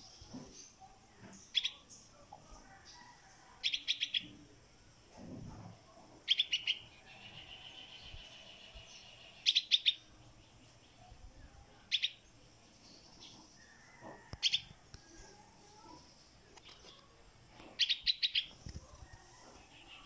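Yellow-vented bulbul fledgling calling for its parent: short bursts of quick, rapid chirps repeated every two to three seconds, with one longer drawn-out note about seven seconds in.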